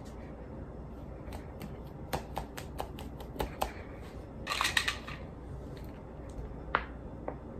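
Irregular small sharp clicks, about a dozen and a half, starting about a second in, with a brief crackling rustle midway. Under them runs a faint steady low hum of room tone.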